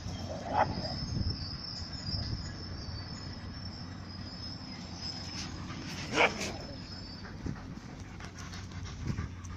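Manchester terriers panting to cool down in the heat, with a thin steady high hum and two brief sharp sounds, the louder one about six seconds in.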